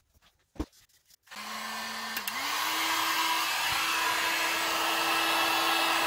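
Cheap handheld electric heat gun switched on about a second in, blowing hot air onto a phone's back panel: a steady rush of fan air with a motor hum that steps up in pitch a second later as the fan speeds up. A couple of light clicks come just before it starts.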